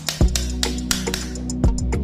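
Background music with a steady beat: drums over sustained bass notes.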